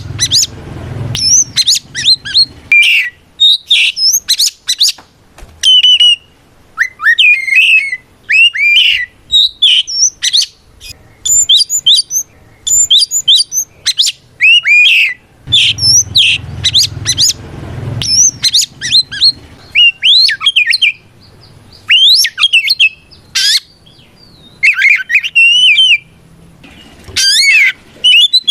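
Oriental magpie-robin (kacer) singing loudly in rapid, varied phrases of clear whistles, sweeping notes and harsh chips, coming in bursts with short pauses. This is the bird's full-voiced challenge song, calling out to a rival.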